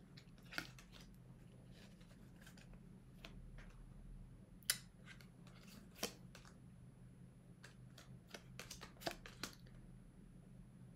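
Oracle cards being handled by hand: quiet, scattered flicks and soft clicks of card stock as cards are pulled from the deck and laid down, with a handful of sharper snaps spread through.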